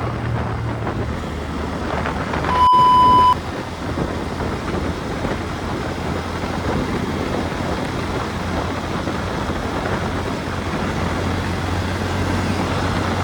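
Motorcycle running at road speed, with wind rushing over the microphone and tyre noise. About two and a half seconds in, a loud, high electronic beep sounds once for under a second and cuts off sharply.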